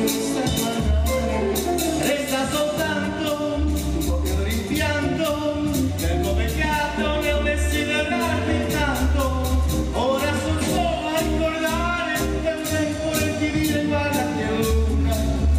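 A man singing a melody into a microphone over band accompaniment with a steady beat and a bass line.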